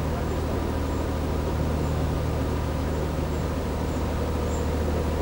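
Narrowboat's diesel engine running steadily under way: a low, even hum.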